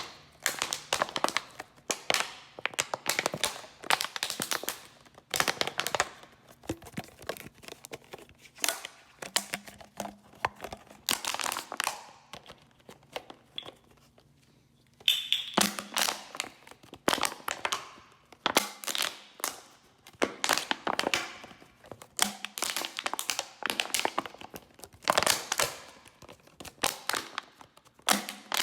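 A bottle being handled: repeated bursts of crinkling, crackling and tapping, with short pauses between them and a brief ringing tone about halfway through.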